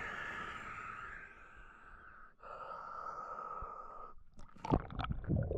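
A diver breathing slowly through a snorkel, two long hissing breaths, then water splashing a little before the end as he ducks under.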